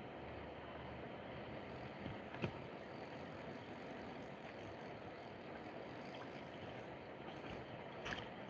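Steady outdoor background noise, a faint even rush, with one sharp click about two and a half seconds in and a few more clicks near the end.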